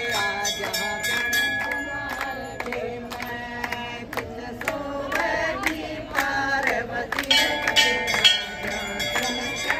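Devotional bhajan sung by a group of people, with hand-clapping keeping the beat.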